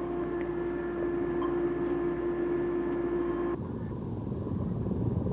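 Steady machinery hum of a submarine's interior, with one constant mid-pitched tone and fainter higher tones. About three and a half seconds in, it cuts abruptly to a low, rushing underwater rumble.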